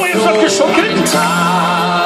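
A song with singing played over a stage's loudspeakers.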